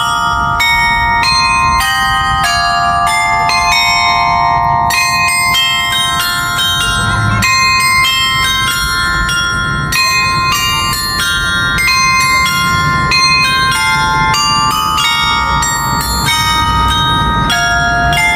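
Carillon bells of a 35-bell tower carillon playing a melody, one ringing note after another, with a low rumble underneath.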